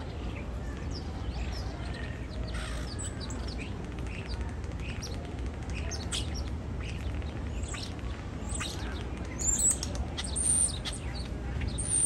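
European starling singing a varied, rambling song of short clicks, rattles and whistles, with louder high whistles near the end.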